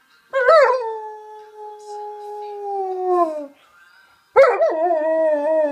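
German Shepherd howling along to a song: two long howls. The first rises briefly, then holds and slowly slides down; the second starts about four seconds in and wavers in pitch.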